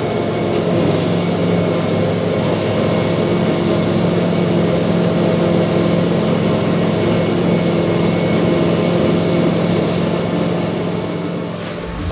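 Heavy diesel farm machinery at work chopping grass for silage: the engine runs steadily under load with a constant drone.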